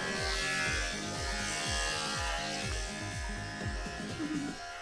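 Electric pet grooming clippers buzzing while shaving a long-haired cat's coat for a lion cut, with background music carrying a steady beat underneath.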